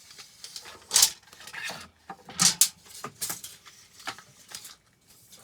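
Handling noise: a few short, sharp clicks and rustles as a charging cable and its small plastic parts are handled and unwound, loudest about a second in and again around the middle.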